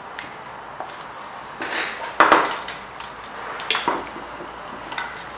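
Sharp clicks and knocks from hard plastic parts being handled. The loudest comes a little after two seconds in and a smaller one near four seconds, with lighter ticks between.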